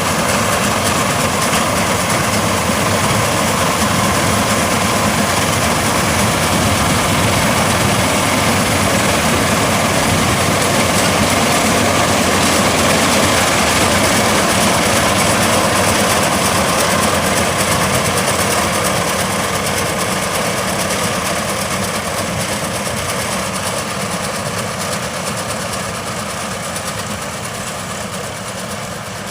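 Changfa CF805N combine harvester running, its engine and machinery making a steady, loud, dense drone that grows gradually quieter over the last ten seconds.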